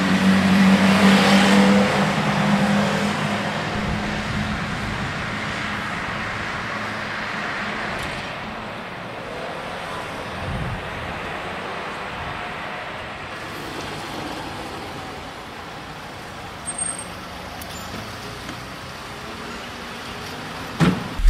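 Street traffic: a motor vehicle's engine passing close and fading over the first few seconds, then a steady traffic hum. A brief high chirp comes about 17 seconds in, and a thump comes near the end.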